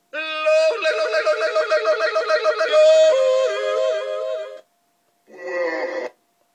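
Recorded yodelling played over a fairground ride's sound system, a pitched voice warbling rapidly up and down; it breaks off a little over halfway through, and a shorter pitched snatch follows about a second later.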